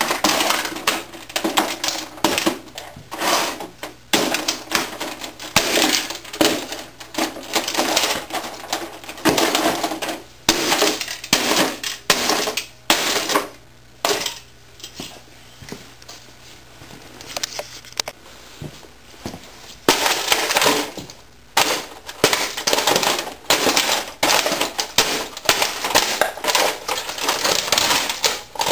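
Wesco leather boots stomping on an old 1980s word processor, crushing it: repeated hard impacts with the clatter of breaking plastic casing and loose parts. There is a lull of several seconds about midway before the stomping resumes.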